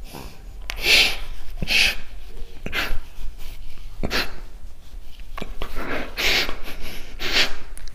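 A man crying, with short breathy sniffles and sobbing breaths about once a second.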